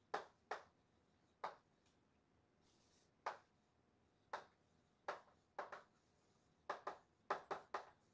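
Chalk tapping and scraping on a chalkboard as a line is written: short, sharp taps at irregular intervals, coming closer together near the end.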